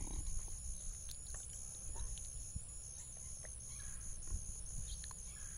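Steady high-pitched insect drone in a summer yard, with a few faint short chirps or ticks scattered through it over a low rumble.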